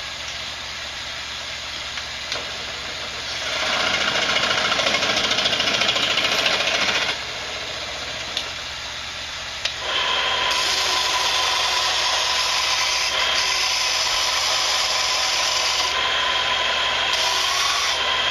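Bench power tool running twice, first for a few seconds and then longer with a steady whine, as it cuts the end off a wooden Native American flute to shorten it and raise its pitch toward A.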